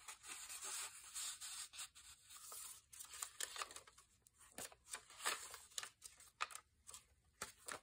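Soft paper rustling and sliding as a card is pushed into a paper pocket of a handmade journal, then the journal's thick, stained pages being leafed through in short, irregular swishes.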